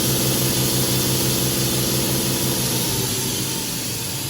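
Spindle of a 1996 Fadal VMC 6030 CNC vertical machining center running at about 1,000 rpm: a steady machine hum with an even pulse over a high hiss. About two-thirds of the way through, the pulsing hum breaks up and begins to fade.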